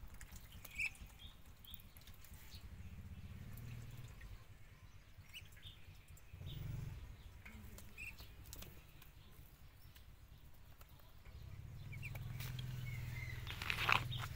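Short, scattered bird chirps over a low steady rumble, with a sharp click just under a second in and a louder rustling burst near the end.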